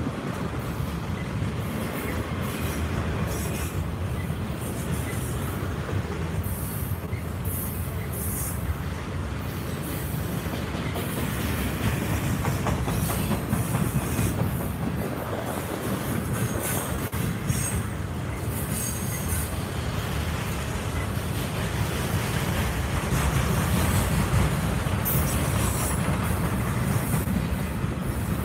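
Freight train of autorack cars and boxcars rolling past at steady speed: a continuous low rumble of wheels on rail, with brief high-pitched wheel squeals coming and going every few seconds.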